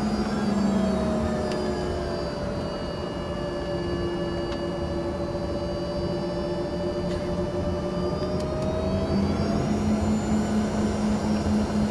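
Rolls-Royce AE 3007 turbofans of an Embraer ERJ-145 heard from inside the cabin, a steady whine over a rumble. The whine sags a little in pitch, holds, then climbs and grows louder from about two-thirds of the way in as thrust comes up for the takeoff roll.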